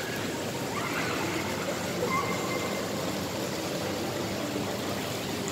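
Shopping mall atrium ambience: a steady wash of background noise with faint, indistinct distant voices and no distinct events.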